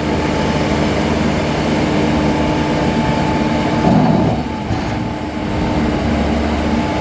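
ACE AX124 backhoe loader's diesel engine running loudly with a steady drone, briefly wavering in pitch about four seconds in.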